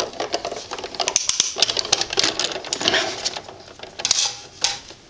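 Hand-cranked die-cutting machine being turned, its rollers pulling a die and cutting-plate sandwich through to cut an opening in a card front: a fast run of clicks and crunches for about four seconds, easing off near the end.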